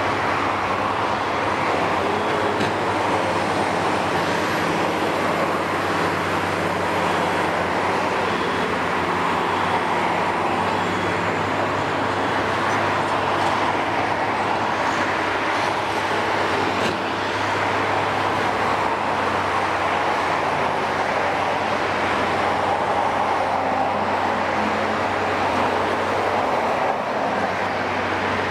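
Kiesel KMC 600 demolition machine's six-cylinder Isuzu turbo-diesel running steadily with a low hum, as its hydraulic telescopic boom shifts slowly.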